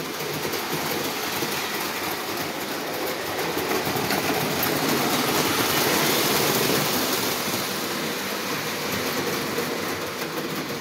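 Lionel 2037 2-6-4 model steam locomotive and its passenger cars running on three-rail track: a steady rolling rumble of motor and wheels on the rails. It grows louder as the train passes close, about six seconds in, then eases off.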